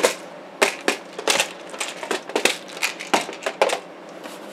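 Clear plastic compartment organizer boxes clacking and rattling as one is handled and slid back onto a stack of others, a quick irregular run of sharp plastic clicks and knocks.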